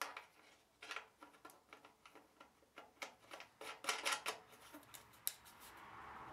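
Light, irregular clicks and taps of hands handling a wooden bracket against a bandsaw's cast-iron frame while a thumb screw is threaded in to hold it. The taps come in small clusters about a second in, around three to four seconds in, and once more near the end.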